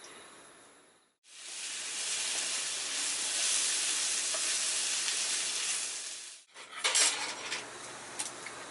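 Food sizzling hard in a forged-iron Turk frying pan, starting abruptly about a second in and cutting off about six seconds in. Then a handful of sharp clinks of a metal utensil against the pan, with a few lighter taps near the end.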